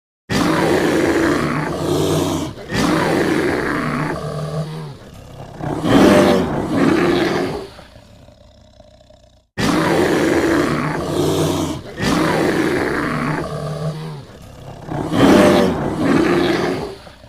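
Sound-effect recording of a bear roaring and growling: three long, deep, rough roars that trail off, then the same sequence played again about halfway through.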